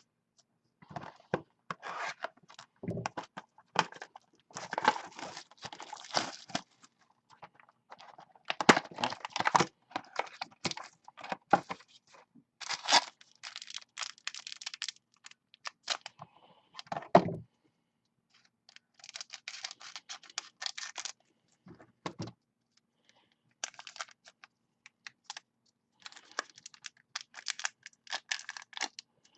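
Trading-card boxes being unwrapped and opened by hand: tearing and crinkling of the packaging, with scrapes and clicks, in bursts separated by short pauses.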